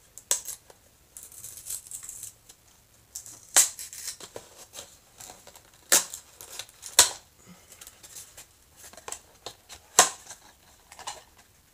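A small cardboard blind box and its plastic packaging being opened by hand: a few sharp snaps and clicks, with rustling and crinkling between them.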